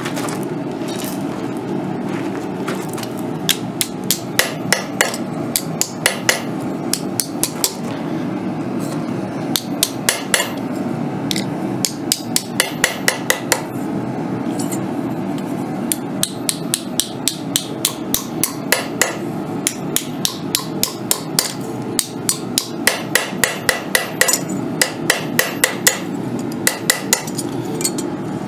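Small hammer striking a strip of annealed copper on a steel block to flatten it, in runs of quick blows about four a second with short pauses between, over a steady low hum.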